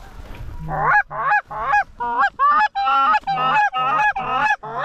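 Canada goose honks in a fast, loud run of about three calls a second, two voices overlapping at times, starting about a second in.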